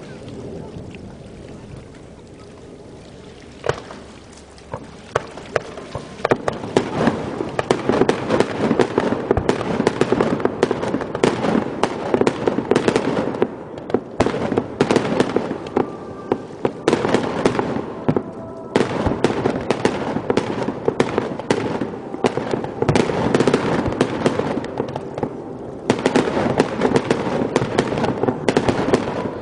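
Fireworks display: a few scattered bangs, then from about six seconds in a dense, continuous crackle of rapid bursts and bangs.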